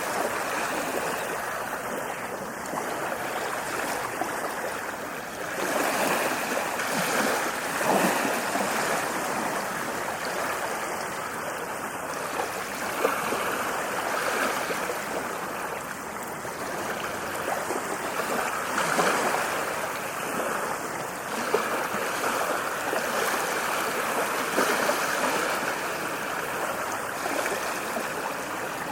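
Ocean waves breaking and washing up a beach, a continuous rushing wash that swells every few seconds as each wave comes in.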